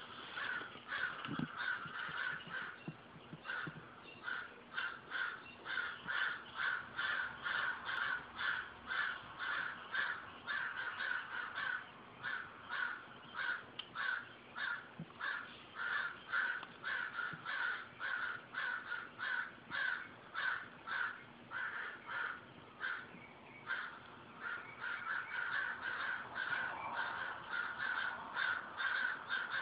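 A group of crows cawing nonstop, the calls overlapping at about two or three caws a second.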